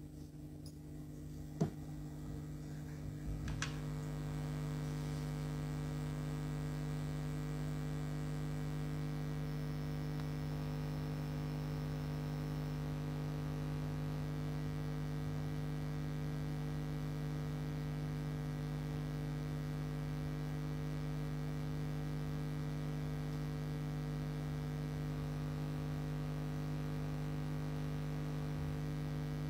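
A couple of soft clicks in the first few seconds, then a steady electrical mains hum with several overtones that does not change.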